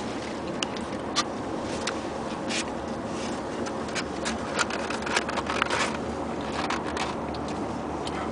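Steady road and engine noise heard inside a moving car's cabin, with scattered light clicks and taps throughout.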